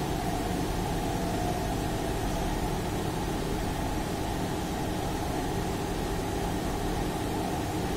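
Steady hum and rumble of running machinery, level and unchanging, with no distinct events.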